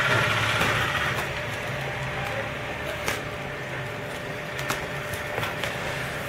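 Cardboard shipping box being opened by hand: taped flaps pulled apart with rustling and scraping of cardboard and a few light knocks, over a steady background hum.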